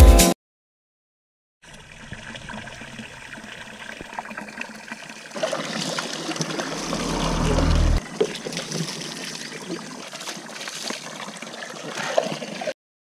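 Running water trickling, getting louder about five seconds in. A low rumble swells underneath and stops abruptly about eight seconds in.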